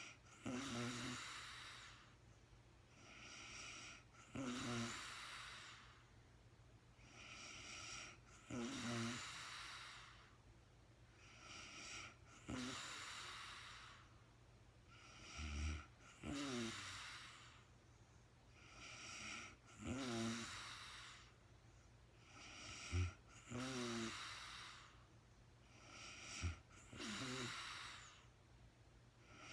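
A woman snoring in deep sleep in a slow, regular rhythm of about one breath cycle every four seconds. Each cycle is a softer breath followed by a louder, rattling snore. A few short, sharp low bumps come in the second half.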